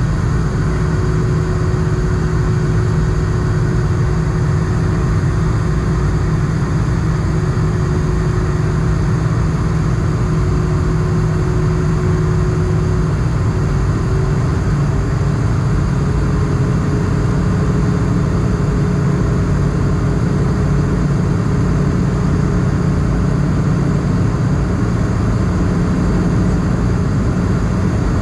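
Steady in-flight cabin noise of an Airbus A220: the Pratt & Whitney geared turbofan engines and rushing air heard from a window seat over the wing. A steady engine hum runs through it and shifts slightly higher in pitch about halfway through.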